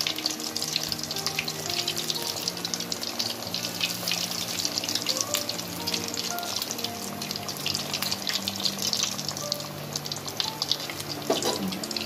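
Breaded chicken nuggets deep-frying in hot oil: a steady, crackling sizzle. Soft background music plays underneath.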